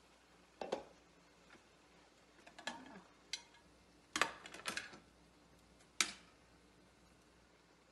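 Kitchenware being set down on a glass-top electric stove: a glass pot lid, plates and a spoon clack and clink in about six short, separate knocks, the loudest about a second in, near the middle and about six seconds in.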